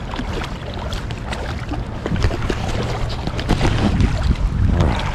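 Wind buffeting the microphone in a steady low rumble, with irregular splashing as a hooked steelhead thrashes at the surface of shallow creek water.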